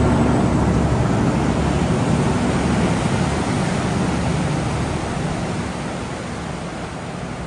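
Canal boat engine running under a steady rush of wind and water noise, getting quieter over the last couple of seconds.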